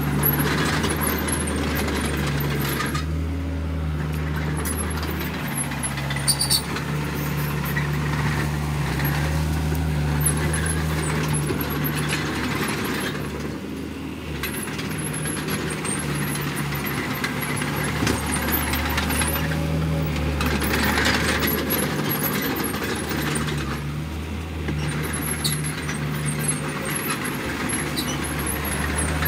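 Mini crawler bulldozer's engine running steadily as it pushes loose dirt and rocks with its blade, the engine note swelling and easing under changing load, with rough scraping of soil against the blade.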